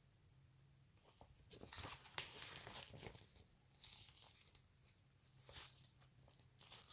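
A plastic crisp packet rustling and crinkling in the hands in a few short bursts, with a sharp click about two seconds in.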